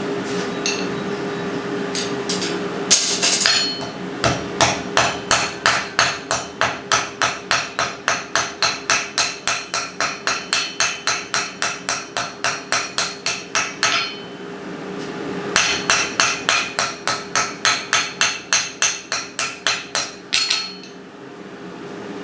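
Hammer blows on hot 1/4 inch round rod in a rivet header on the anvil, upsetting it into a rivet head: quick, ringing metal-on-metal strikes at about three a second, in two runs with a short pause between. A steady hum runs underneath.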